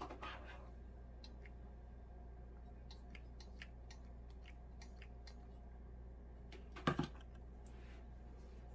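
Quiet craft-table handling while a hot glue gun is used: faint scattered clicks and ticks, a louder clatter about seven seconds in, and a low steady hum underneath.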